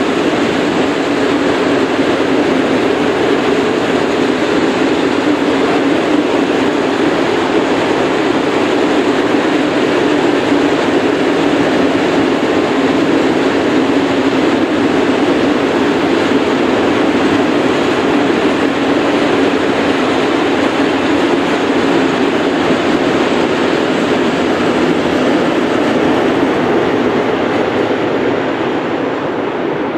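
Freight train wagons rolling past: a steady rolling noise of steel wheels on the rails from a long rake of open-top freight wagons, easing a little near the end as the last wagons pass.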